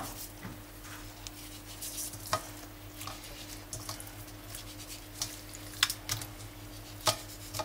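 Hands salting and turning raw hake loins in a stainless-steel colander: scattered light taps and clicks of fingers and fish against the metal, over a faint steady hum.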